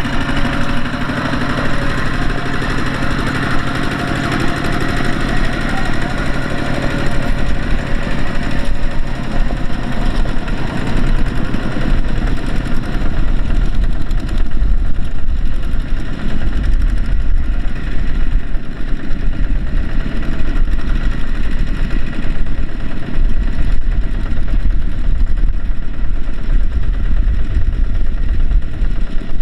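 Diesel engine of heavy earthmoving machinery running steadily at a loud, even pitch.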